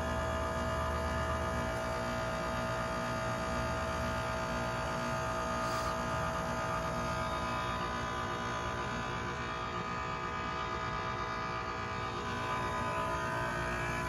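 Goodman GSH13 heat pump's outdoor unit running in its defrost cycle, the compressor giving a steady hum made of several fixed tones.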